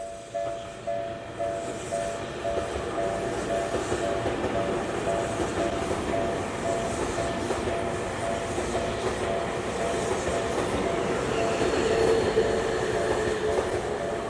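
Japanese level crossing alarm ringing in a steady two-tone pattern just under twice a second while a train passes over the crossing. The train's running noise builds from about a second in and is loudest near the end.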